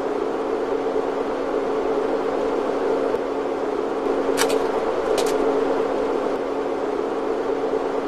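Steady hum with a constant low tone over a noisy haze, broken by two short sharp clicks less than a second apart near the middle.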